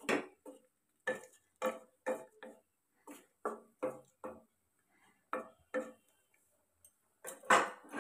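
Stirring a milky vegetable curry (shukto) in a nonstick kadai: short scraping, knocking strokes against the pan, two to three a second, with a pause and then one louder knock near the end.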